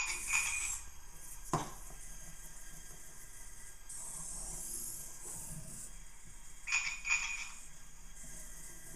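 i-SOBOT toy humanoid robot's small servo motors whirring in short spells as it lowers itself into a crouch. A sharp click comes about a second and a half in, and a few short, high ringing tones sound at the start and again about seven seconds in.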